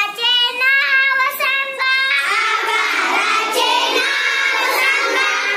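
A group of young girls singing together, a classroom song about geometric shapes.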